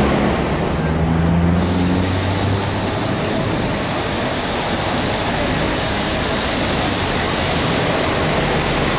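Hong Kong double-decker tram running along its street tracks, heard from on board: a steady rolling noise of wheels on the rails mixed with wind. A low hum fades out about two seconds in.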